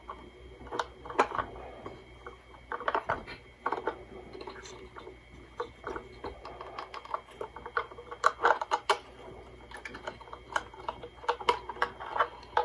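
Irregular small clicks, taps and rattles of hands handling a small radio as its chassis is worked loose and lifted out of its case, over a faint steady hum.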